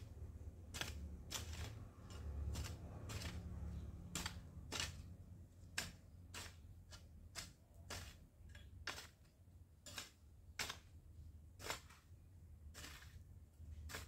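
A hand hoe chopping into dry, hard soil around a shrub: a run of short, sharp strikes, roughly one to two a second, at an uneven pace.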